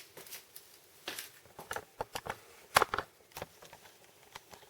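Crisp air-fried puff pastry crackling and crunching in a series of sharp, irregular crackles, as the flaky pastry is broken or bitten into.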